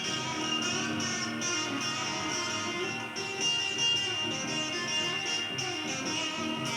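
Blues music with a guitar playing.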